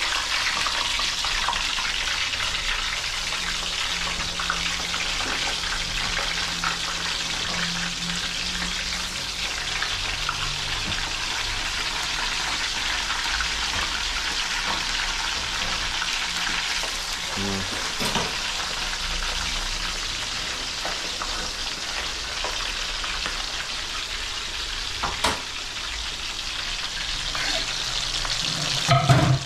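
Green-plantain slices (patacones) frying a second time in hot oil after a dip in garlic water: a steady sizzle, with a few light knocks partway through and a louder thump near the end.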